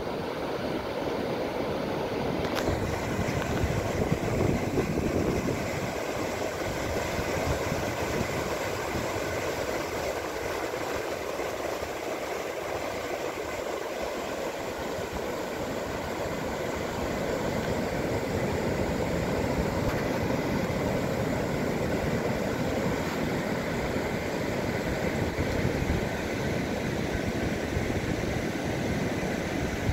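Sea surf breaking on a sandy beach: a steady, unbroken rush of waves.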